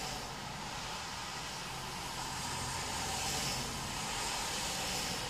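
Cars passing on a rain-wet road: a steady hiss of tyres on water that swells about three seconds in as a car goes by.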